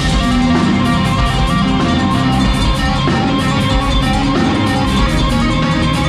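Live rock band playing: a guitar-led passage of held, changing notes over bass, with a steady beat ticking on the cymbals.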